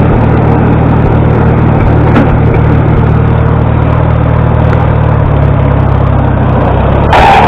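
Farmall 300 tractor's four-cylinder gasoline engine running at a steady idle with no choke, a sign that its freshly ultrasonic-cleaned carburetor has cured the stalling. Near the end the sound cuts abruptly to a louder, brighter noise with a steady high tone.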